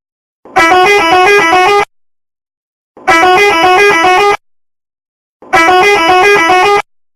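Telolet bus horn, a multi-tone musical horn, sounding the same short tune three times. Each blast lasts about a second and a half and flips quickly back and forth between two notes, with silence between the blasts.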